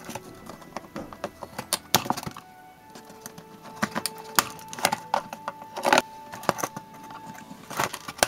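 Irregular sharp clicks and crackles of a hobby knife cutting the thin ties that hold toy parts to a cardboard packaging insert, with plastic and cardboard being handled, over background music.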